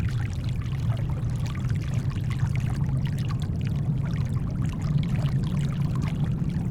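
Shoreline water trickling and splashing in small irregular bits, layered over a steady low brown-noise rumble.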